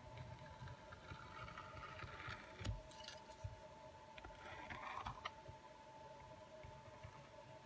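Faint scraping and rustling as an adhesive tube is squeezed and its nozzle drawn along the edge of a phone's mid-frame, with a couple of light knocks, over a steady faint whine.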